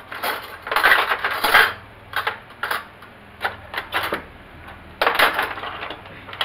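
Metal kitchen utensils clattering while a spoon is fetched: a dense rattle about a second in, a few single clinks, then another rattle near five seconds.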